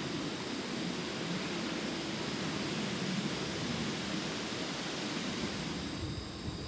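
A steady rushing noise with faint, steady high-pitched insect trills running through it. The rushing eases a little near the end, leaving the trilling clearer.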